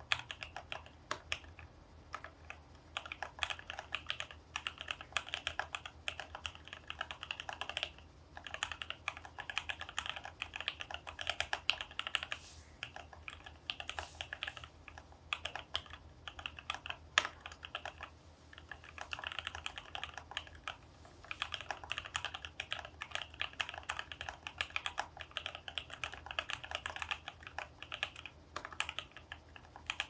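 Typing on a mechanical keyboard with Minterly Seal linear switches lubed with Krytox 205g0, on an FR-4 plate: a fast, steady run of key strokes, broken by a few short pauses.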